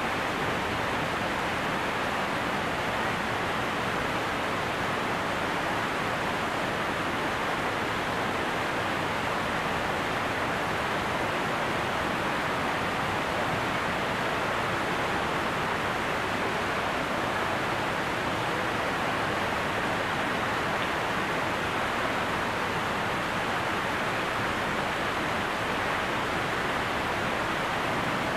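Steady rushing of falling water, an even roar that does not change.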